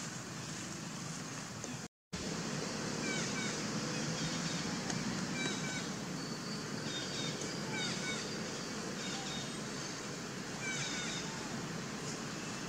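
Outdoor woodland ambience: a steady rushing background with short, repeated bird chirps and trills from about three seconds in. The sound drops out for a moment about two seconds in.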